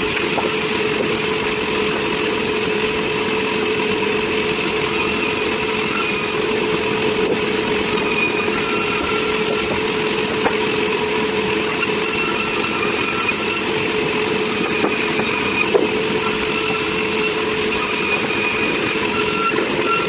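Sawmill machinery engine running steadily, with a few light knocks about halfway through and again later.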